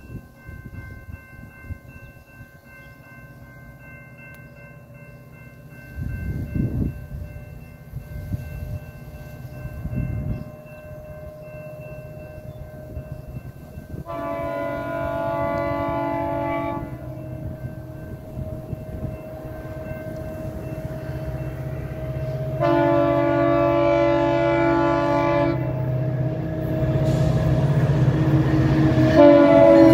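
Air horn of an approaching GO Transit diesel commuter locomotive sounding two long chords, then a short one near the end, in the long-long-short pattern that opens a grade-crossing signal. Under it the locomotive's diesel engine rumbles, growing louder as the train draws near, and wind gusts hit the microphone twice early on.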